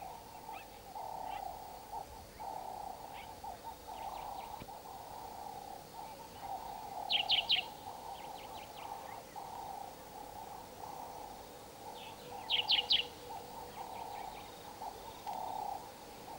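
Wild birds calling: a lower pulsing call repeats throughout, and twice a quick burst of three or four high chirps stands out as the loudest sound, about seven and twelve and a half seconds in.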